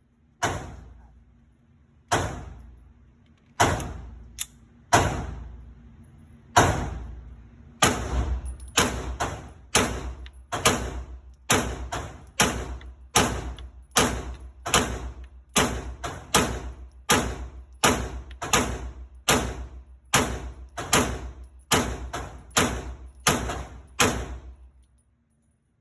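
Pistol shots fired one after another: a handful of spaced shots, then a long steady string at roughly one and a half shots a second that stops shortly before the end.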